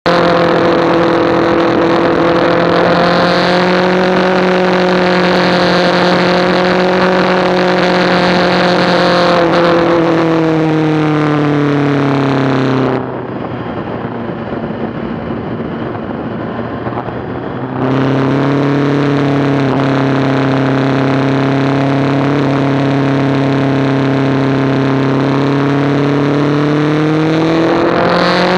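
Sport motorcycle engine running at steady, moderate revs, with wind noise on an onboard microphone. The engine note falls away about halfway through, leaving mostly wind hiss for around five seconds, then comes back and rises again near the end.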